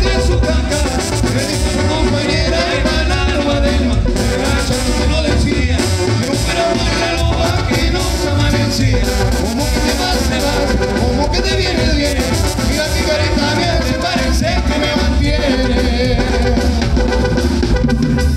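Tamborazo band playing an up-tempo dance tune: brass and reed lines over the steady beat of the tambora bass drum and cymbal.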